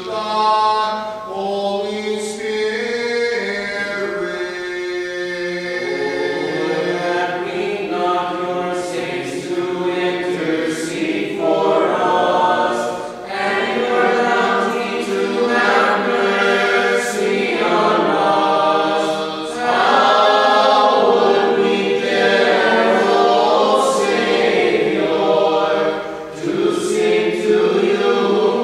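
Unaccompanied Orthodox liturgical chant sung by a group of voices, phrase after phrase, with brief breaks between phrases about halfway through and near the end.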